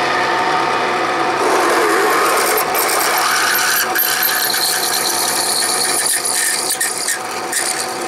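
Bridgeport milling machine running with a 29/64 in twist drill cutting into round metal bar: a steady grinding, rasping cutting noise over the spindle's hum of several steady tones. This is the tap-drill hole for a 1/2-20 thread.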